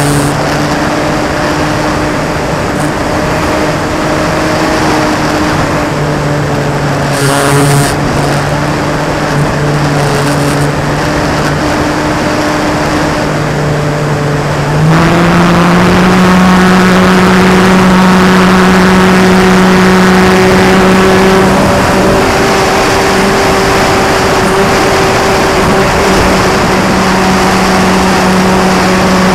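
Electric motor and propeller of a battery-powered RC Sukhoi plane whining steadily in flight, heard from a camera on the plane over a rush of wind. About halfway through the pitch steps up and the sound gets louder as the throttle is opened, then it holds there.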